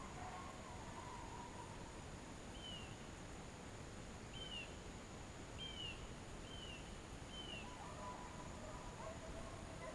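Steady hiss of rain and wind over open woodland. In the middle, a bird gives five short, down-slurred chirps.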